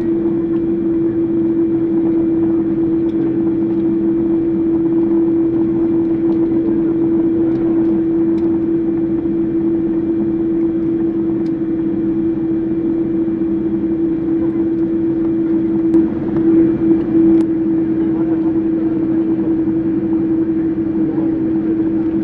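Steady engine drone heard from inside a vehicle: a constant hum with one strong low tone that holds without change, wavering slightly near the end.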